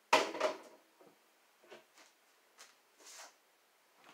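Kitchen counter handling sounds: a sharp knock with a brief ring right at the start, then a few faint taps and rustles.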